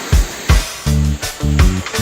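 Background music with a steady beat: a bass line and kick drum.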